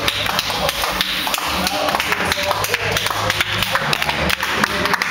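Loud club crowd noise: voices, with sharp taps or claps, over a steady low bass from the sound system.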